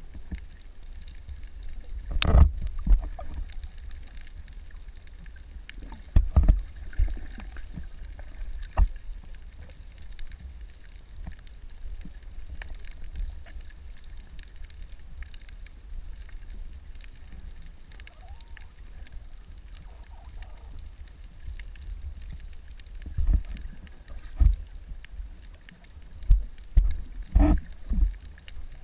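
Muffled underwater ambience picked up by a submerged camera: a steady low rumble with scattered knocks and thumps, most of them in the last few seconds.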